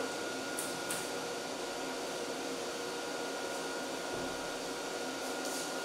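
Steady mechanical hum and hiss of room equipment, like fans running, with a few faint brief rustles about a second in and near the end.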